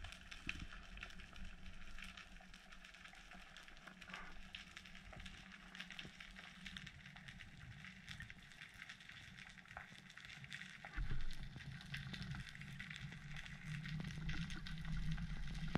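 Underwater ambience: a steady, faint crackle of countless tiny clicks, typical of snapping shrimp on a rocky seabed. Low rumbles of water moving against the camera come in about eleven seconds in and grow near the end.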